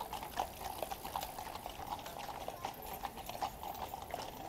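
Clip-clop of shod cavalry horses' hooves on the road, many overlapping hoofbeats from a column of several horses, fairly faint.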